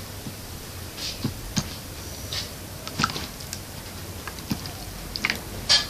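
Slime being stretched and pulled by hand: irregular small sticky clicks and crackles, about one or two a second, with a sharper crackle near the end.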